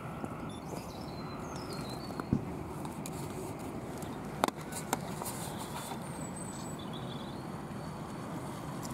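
Steady outdoor background noise with a few faint bird chirps, and a few sharp knocks from the camera being handled.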